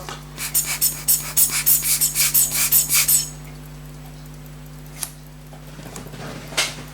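Quick scratchy rubbing strokes on a small object, several a second, for about three seconds, then two light clicks over a steady low hum.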